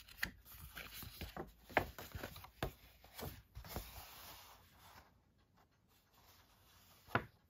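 Thin paper rustling and crackling as a folded newspaper reproduction is opened out by hand, in quick irregular crinkles for the first five seconds, then quieter, with one sharper crackle near the end.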